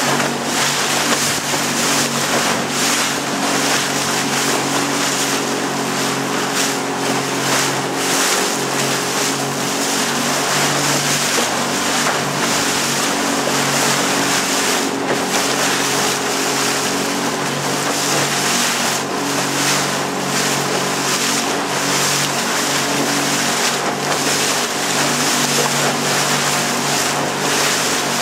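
Motor of a very small open boat running steadily under way, a constant drone, with a dense rush of wind and water over it.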